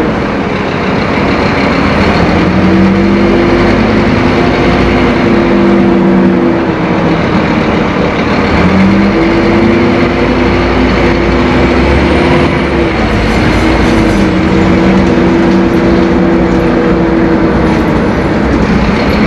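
Scania K-270 bus engine, a five-cylinder inline turbodiesel, running loud under load. Its note climbs in pitch and then drops at each gear change, three or four times.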